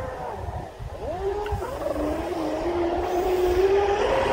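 Motor of a Deltaforce 35 RC speedboat running on the water. Its whine dips and comes back up about a second and a half in, then rises steadily as the boat gathers speed.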